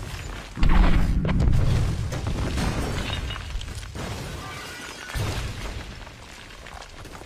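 A building exploding: a big blast about half a second in, with a deep rumble and breaking glass and debris that slowly die away, then a smaller second blast about five seconds in.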